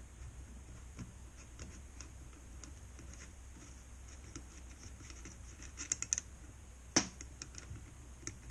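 Hand unscrewing the nut that holds a dirt bike's foam air filter onto its cage: faint scratching and light ticks as the nut turns on its threads. About seven seconds in there is a sharp click, the loudest sound, as the nut and washer come free and are set down.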